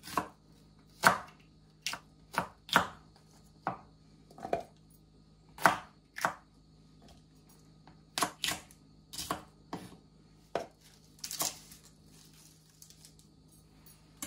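Knife chopping onion and green seasoning vegetables on a wooden cutting board: irregular sharp knocks of the blade on the board, about one a second with short pauses, thinning out near the end.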